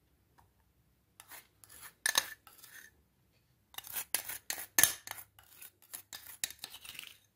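Short scratchy scrapes and clicks of kitchen dishes being handled as baking powder is tipped from a small glass bowl into a plastic mixing bowl: a few at first, then a quicker run from about halfway in.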